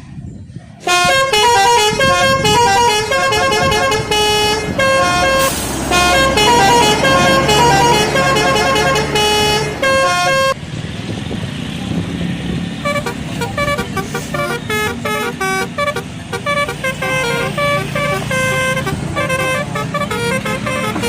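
Indonesian bus telolet horns: multi-tone horns playing quick melodic tunes of short beeping notes, starting about a second in. About halfway the tune switches abruptly to another telolet, a little quieter, over low engine and street noise.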